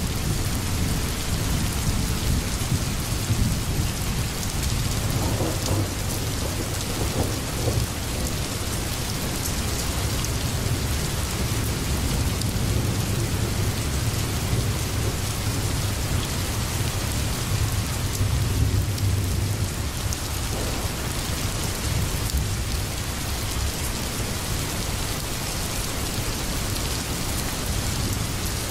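Steady rain with a continuous low rumble of thunder underneath, a rainstorm ambience.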